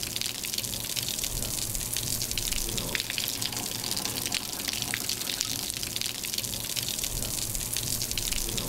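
Water running and splashing steadily as it drains off a tiled balcony surface through the slots of the edge profile into the drainage gutter.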